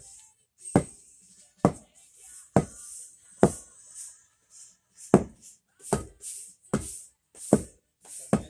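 Hand tamper with a flat steel foot pounding the sand bed under sunken pavers, steady blows a little more than one a second, with a hissy scraping of a rake or broom on the sand between them.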